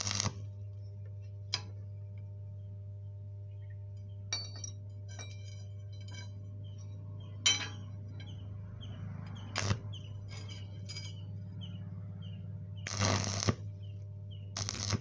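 Stick (arc) welding on thin square steel tube: the electrode is struck in short bursts of crackling, sputtering arc, several times, the longest about two-thirds of the way through, over a steady low electrical hum.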